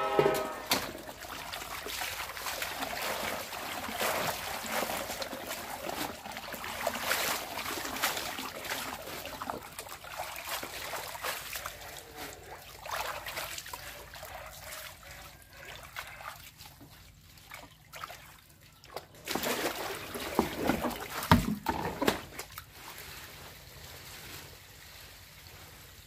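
Water trickling and splashing in uneven spells. It is quieter in the middle and louder again about twenty seconds in.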